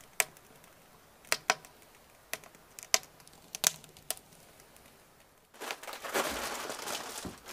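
Dry cedar burning in the firebox of a small wood-fired barrel oven, crackling with sharp single pops about every half second, faint between them. About five and a half seconds in, a louder, steady rustling and crinkling takes over.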